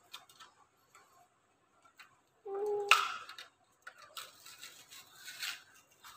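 A Hot Wheels blister pack being worked open by hand: small clicks of stiff plastic and card, a sharp plastic snap about three seconds in, then crinkling as the plastic blister is torn. A short hum comes just before the snap.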